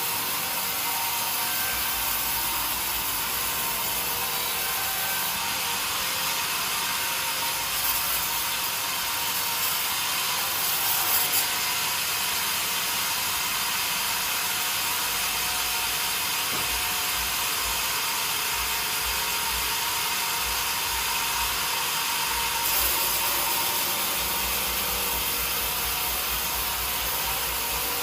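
A sawmill saw cutting through wood, a steady high-pitched hiss of sawing noise, getting briefly louder a few times.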